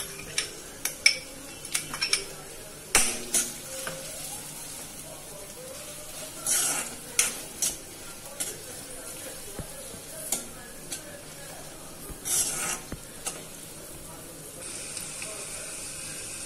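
Chopped onions sizzling in hot oil and butter in an iron kadhai, with a metal spoon scraping and clinking against the pan now and then as they are stirred. The stirring stops near the end while the steady sizzle goes on.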